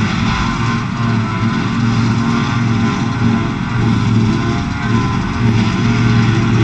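John Deere 7750i self-propelled forage harvester chopping grass for silage, with a tractor alongside. A loud, steady engine drone under load carries an even hiss over it.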